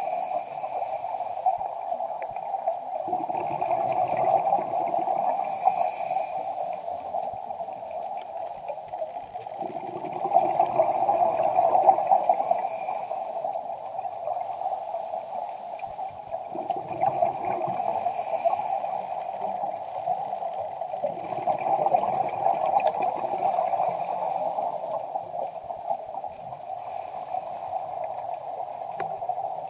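Underwater sound of a scuba diver's exhaled breath bubbling in surges of about three seconds every six or seven seconds, over a steady rushing.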